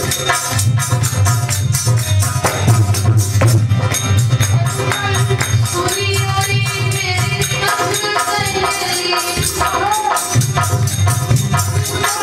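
Live Hindi devotional bhajan music: a steady percussion beat with a drum, and a woman's voice singing over it from a few seconds in.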